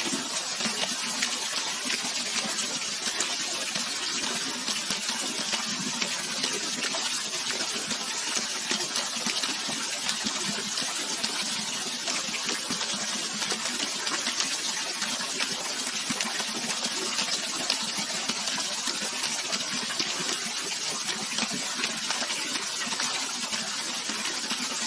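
Running water rushing and splashing steadily, a stream or small waterfall, with a fine bright crackle of spray and droplets.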